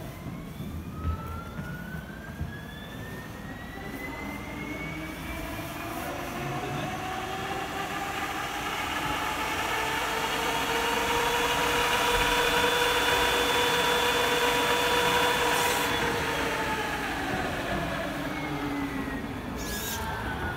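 Small 12 V fan whirring, its whine rising in pitch as it speeds up over about ten seconds, holding steady, then falling as it slows down near the end, with a rush of air.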